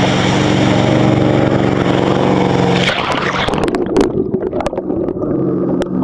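Wake boat's inboard engine running at speed with steady rushing water and spray from the wake. About three seconds in the high hiss drops away, leaving the engine drone with irregular sharp crackles.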